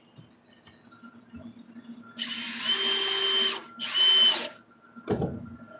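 Cordless drill/driver driving a screw through a metal tie-down anchor plate into a wooden trailer floor, in two runs: one of about a second and a half, then a shorter one as the screw seats. A single thump follows near the end.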